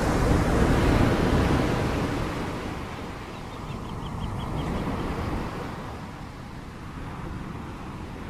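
Ocean surf: a wave swells and washes in during the first two seconds, then eases back to a steady wash. A faint quick run of about seven high ticks comes about four seconds in.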